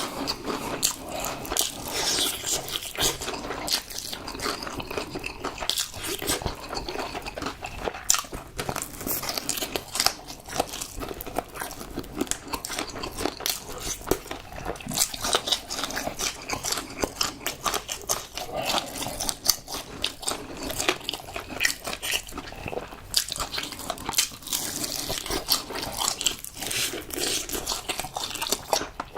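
Close-miked eating of crispy fried chicken: repeated crunching bites and chewing, dense crackles that go on without pause.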